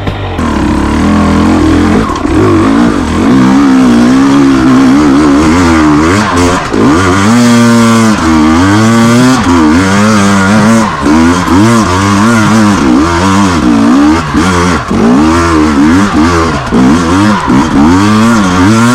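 KTM EXC 250 TPI two-stroke enduro motorcycle engine under constant throttle changes, its pitch rising and falling every second or so. About seven seconds in it revs up in one longer rise before dropping back.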